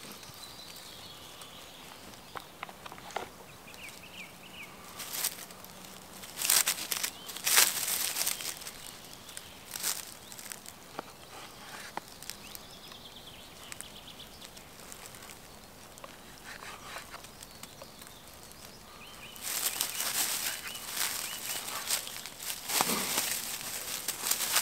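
A knife cutting slices from a dense rye bread loaf on a wooden board: intermittent short rasping strokes, with a longer run of them in the last few seconds. Faint bird chirps sound now and then in the background.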